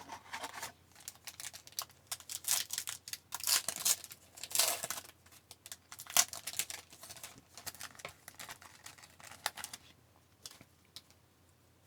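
Foil wrapper of a hockey card pack crinkling and being torn open, with the cards handled in short crackly rustles; it stops about ten seconds in.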